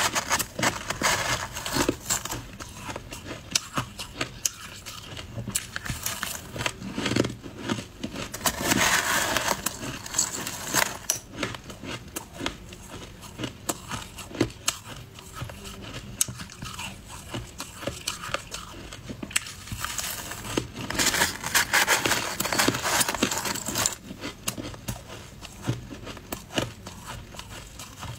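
Shaved ice being crunched and chewed, with a metal spoon scooping through the icy slush. The crackly crunching is uneven, with two denser, louder spells about a third of the way in and again about three quarters through.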